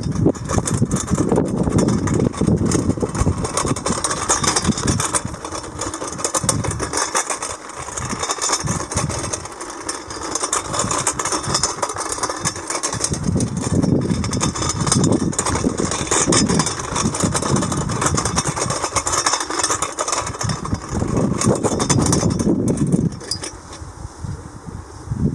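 Hoverboard hub motors driving a small remote-controlled robot over a rough dirt-and-gravel track, its wheels and frame rattling, with irregular low rumbling surges throughout.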